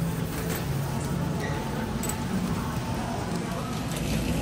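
Busy supermarket din: the murmur of many shoppers talking, with scattered light clicks and rattles from a shopping cart being pushed.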